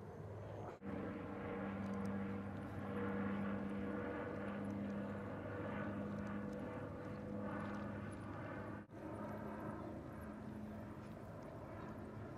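A steady droning engine hum that swells and fades about once a second, with two brief dropouts.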